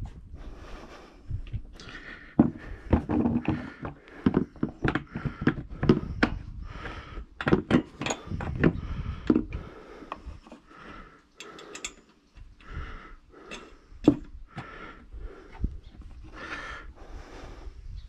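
Plastic sawmill blade guard being handled and fitted against the mill's steel frame: an irregular run of knocks, clicks and scrapes, with one sharper knock a little past the middle.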